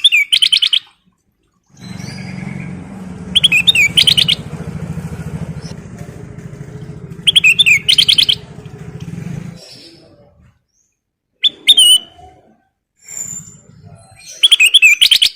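Kutilang emas bulbul singing in short, quick phrases, five of them a few seconds apart. A low, steady rumble like an engine runs under the middle phrases and stops about two-thirds of the way through.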